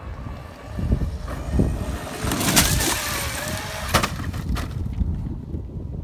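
Wind rumbling on the microphone. Midway, the Traxxas X-Maxx RC truck's electric motor whines up and down as it drives, and a couple of sharp knocks follow about two-thirds of the way through.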